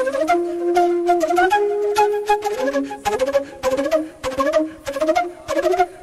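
Background music: a flute playing an ornamented melody that slides between notes, over a beat of percussive strikes.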